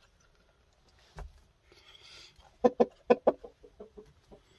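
Gamecock rooster clucking: a quick run of about eight short clucks, the first few loudest and the rest trailing off, with a soft thump about a second before.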